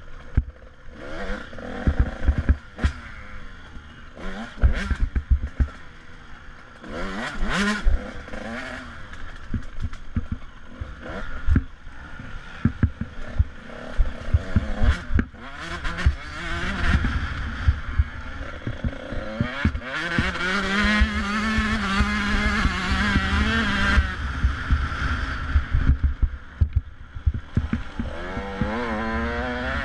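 Dirt bike engine revving up and down under hard riding, with frequent knocks and clatter as the bike jolts over rough ground and rocks, and a heavy low rumble of wind on the microphone. About twenty seconds in the engine holds a steady high note for a few seconds, then rises again near the end.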